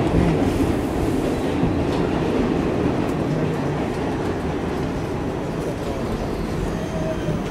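Inside an R46 subway car running along the track: a steady rumble and rattle of wheels on rail, easing slightly in loudness toward the end.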